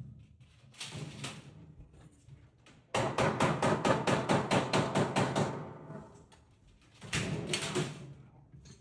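Pneumatic air hammer rapping on a sheet-metal seam in rapid runs of about eight blows a second. There is a short burst about a second in, a longer, louder run in the middle and another short burst near the end.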